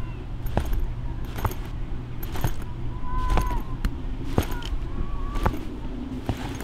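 Footsteps on a paved parking lot, about one a second, over a steady low outdoor rumble.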